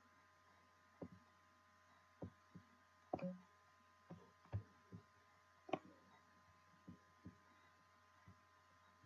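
Near silence: a faint steady hum with about a dozen soft, irregular taps and knocks, two of them a little louder about three and six seconds in.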